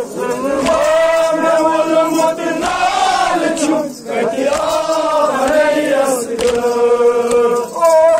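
Voices chanting in long, drawn-out notes with a wavering pitch, breaking off briefly about four seconds in.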